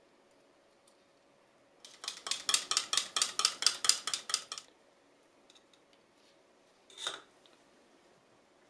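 A stirring stick rattling quickly against the wall of a small plastic cup while epoxy resin is mixed, about six strokes a second for a few seconds, then a single knock a couple of seconds later.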